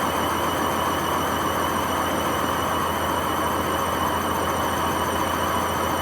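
Hotpoint WMA50 washing machine drum spinning without its ballast weights: a steady low running hum and rumble with a high, wavering whine over it from badly worn drum bearings.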